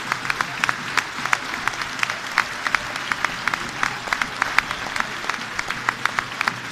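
Large stadium crowd applauding steadily, with sharp hand claps close by standing out from the massed clapping.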